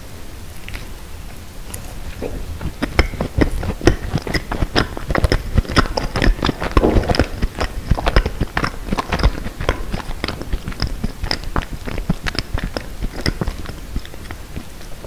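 Close-miked chewing of a soft macaron: a dense run of wet mouth clicks and smacks, busiest through the middle.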